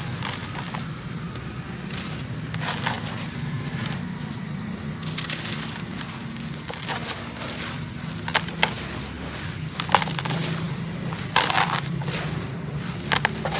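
Charcoal sand biscuits crumbling in water: irregular sharp cracks and gritty crumbling, coming thicker and crisper in the second half. A steady low hum runs underneath.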